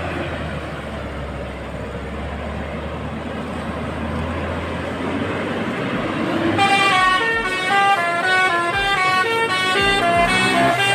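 A coach's engine and road noise, then, a little past halfway, the Basuri telolet horn starts up, playing a quick tune of stepped multi-tone toots that change pitch several times a second.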